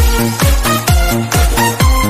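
Background electronic dance music with a steady kick drum, a little over two beats a second, under synth notes.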